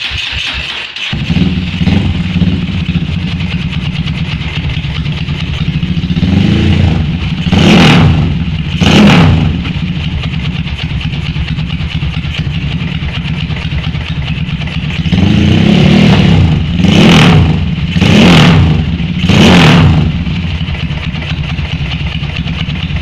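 Motorcycle engine running through an RJM racing muffler freshly repacked with new glasswool, being tried out after the repack. It settles into a steady idle about a second in. It is blipped with the throttle twice about a third of the way through, then four times in quick succession about two-thirds through.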